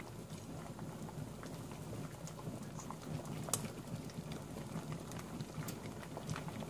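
Pot of fish soup simmering on the stove, a steady bubbling with scattered small taps as a metal slotted spoon scoops fish from the pot, and one sharper tap about halfway through.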